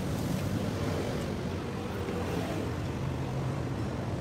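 Steady rumble of passing road traffic.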